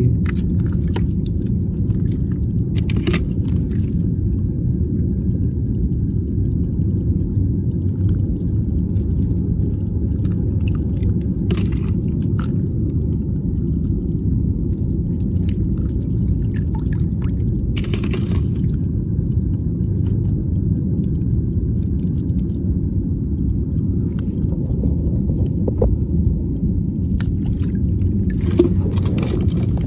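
Steady low rumble, with a few brief splashes and clicks as a hand gropes among rocks in shallow seawater.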